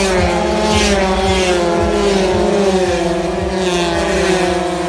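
Several 80cc racing scooter engines running at high revs, their pitch falling slowly as they go by.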